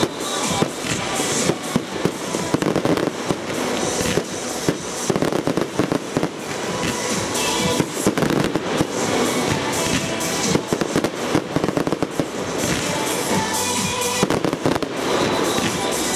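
Fireworks display firing continuously: dense, rapid bangs and crackles from shells, comets and crackling stars, over music.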